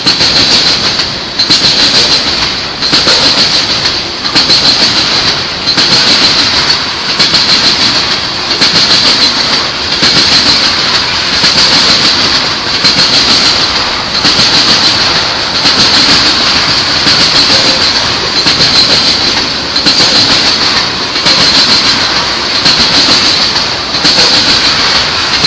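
A train rolling past close by, its wheels clicking over the rail joints in a steady repeating rhythm of about one group of clicks every second and a half, with a steady high-pitched ring above the rumble.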